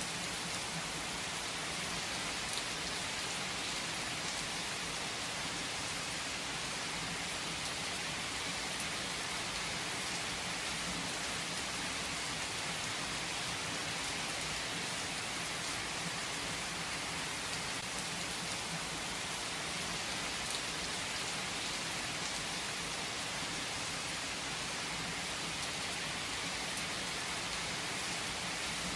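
Steady heavy rain: an even, unbroken hiss with faint scattered drop ticks.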